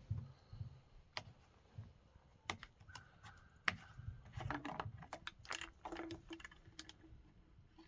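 Faint, irregular small clicks and taps of a chainsaw's parts being handled during a fuel-filter job.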